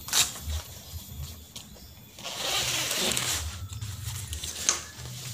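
Nylon riding jacket rustling as it is handled and opened, with a longer swish of fabric about two seconds in and a couple of small clicks. A low hum runs underneath.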